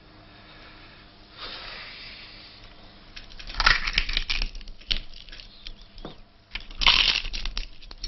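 Crisp roast pig crackling being broken and torn apart: a soft rustle about a second and a half in, then a dense run of sharp cracks and crunches from about three and a half seconds, with the loudest crunch near the end.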